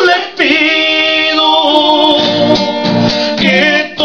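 Singing with acoustic guitar accompaniment in a Spanish-language cantina song; the voice holds long notes between lines.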